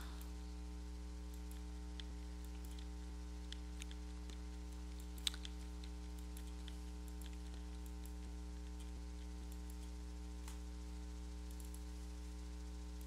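Scattered faint clicks of a computer mouse and keyboard, with one sharper click about five seconds in, over a steady electrical hum.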